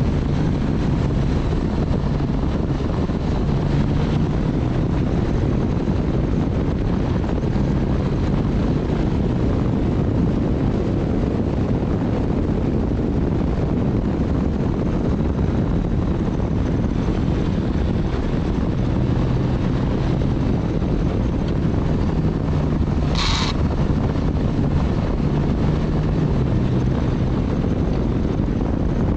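Motorcycle riding at speed: a steady engine hum under heavy wind and road rush on the microphone, with one brief sharp high sound about 23 seconds in.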